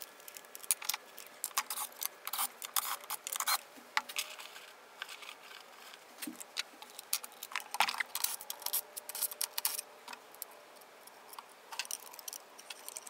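Irregular light clicks, taps and rattles of hands handling small parts and lifting a battery pack's plastic cover off.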